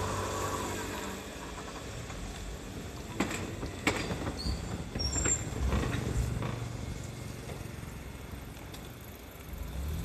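Kintetsu 19200 series limited express train running away on the tracks: a low rumble, with a few sharp clicks about three and four seconds in and some brief high tones just after.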